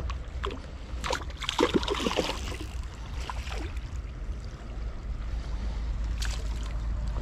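A fish splashing and thrashing at the surface of shallow water, a cluster of splashes from about a second in lasting roughly a second and a half, over a steady low rumble.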